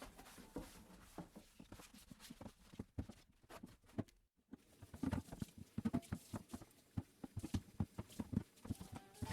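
Quick, irregular light taps and clicks of household items being handled and set down, sparse at first and then coming thick and fast in the second half. A brief drop to near silence falls around the middle.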